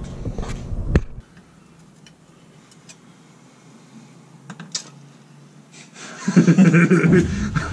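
A few faint clicks and light clinks, then a man's voice talking near the end.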